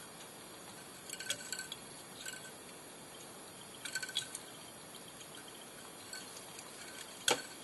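Faint clicks and ticks of fly tying at the vise as the bobbin holder and thread are handled around the hook, with one sharper click near the end, over a low steady hiss.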